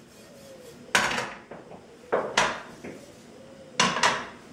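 Copper flambé pans being moved and set down on the metal grates of portable butane gas burners: a handful of metallic clanks and scrapes, one about a second in, then two close pairs near the middle and near the end.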